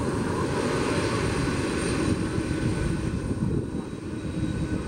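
Airbus Beluga ST's twin GE CF6-80C2 turbofans running at taxi power as the aircraft rolls past: a steady rush with a thin, high fan whine. The upper part of the sound eases off somewhat in the last couple of seconds.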